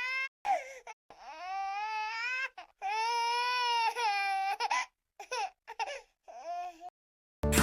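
A high-pitched voice crying: two long wailing cries in the first half, then several short sobbing cries.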